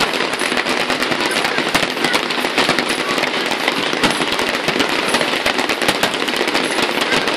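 Fireworks display: a dense, continuous barrage of crackling and popping from many shells and crackling effects bursting at once, with louder bangs standing out now and then.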